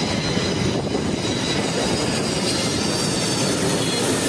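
Antonov An-225's six turbofan engines during landing: a steady rush of jet noise with a faint high whine.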